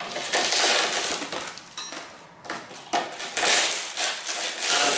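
Broken windshield glass crunching and crackling as it is broken and pulled away with tongs, with small shards clinking. The crunching comes in two long stretches with a short break about halfway.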